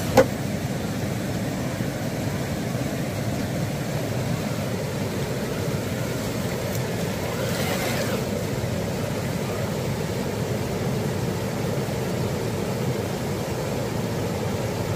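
Steady rushing of a creek and small waterfall, with one sharp click just after the start.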